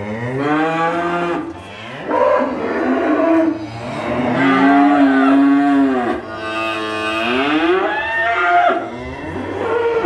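Highland cow mooing: about five long, drawn-out moos one after another, each bending up and down in pitch, with short breaks between them.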